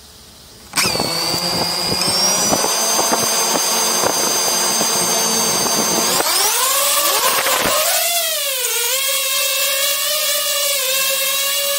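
DJI FPV drone's brushless motors and propellers starting up suddenly about a second in and running as a steady whine. About six seconds in they throttle up for take-off, the pitch sweeping up and wavering before settling into a steady, higher whine.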